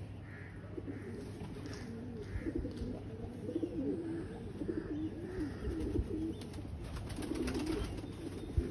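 Domestic pigeons in a rooftop loft cooing, several low, warbling coos overlapping without a break.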